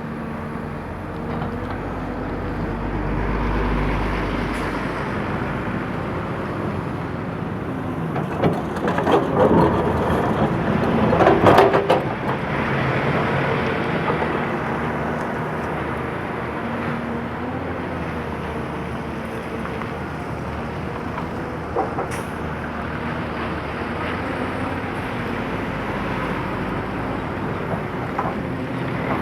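Excavator's diesel engine running steadily, with a few seconds of clattering and knocking about a third of the way in, the loudest part, and a single knock later on.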